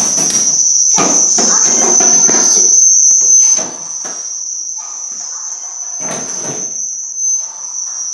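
A steady high-pitched tone runs throughout. Over it come rustling and thumps from play with a small foam basketball at an over-the-door mini hoop, loudest in the first few seconds and again about six seconds in.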